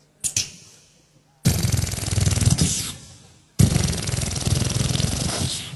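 A man imitating machine-gun fire with his mouth into a hand-held microphone, hands cupped around his lips: two long bursts of rapid pops, the first about a second and a half in and the second about two seconds later.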